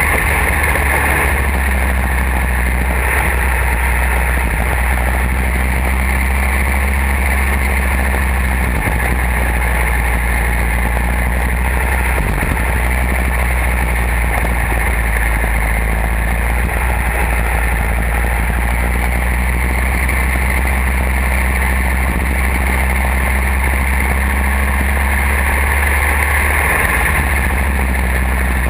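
Go-kart engine running hard around a race track, heard from an onboard camera on the kart, a steady loud drone with rushing wind and road noise.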